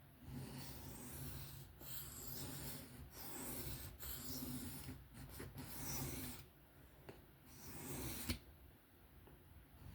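Blade of a Kizer 154CM folding knife being drawn across a sharpening stone in freehand strokes: a run of scraping strokes for about six seconds, a short pause, then one more stroke ending in a sharp click about eight seconds in.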